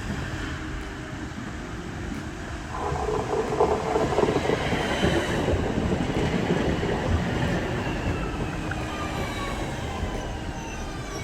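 Citadis Dualis tram-train running on rails, louder from about three seconds in. Near the end come several whines from its electric drive, falling together in pitch as it slows.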